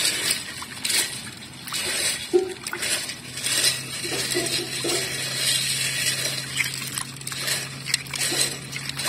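Water sloshing and snail shells clinking against each other and the aluminium basin, in repeated irregular bursts, as a hand swirls and rubs a basinful of siput sedut (mangrove horn snails) to loosen the mud stuck to them.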